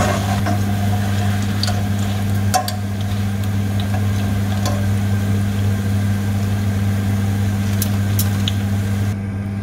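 Chips frying in a pan of oil, sizzling, with a few light clicks of a metal spatula and spoon against the pan as they are lifted out, over a steady low hum.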